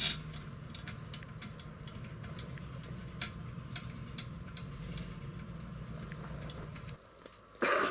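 Scattered light clicks and taps of hand tools on the ATV engine's clutch cover as it is fastened, over a steady low hum. The hum stops about seven seconds in, and a short, louder scuffing clatter follows just before the end.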